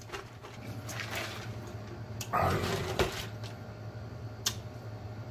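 Close-miked mouth sounds of a man chewing canned Vienna sausages with his mouth closed: faint wet smacking and a few sharp clicks, with a heavier breath about two and a half seconds in.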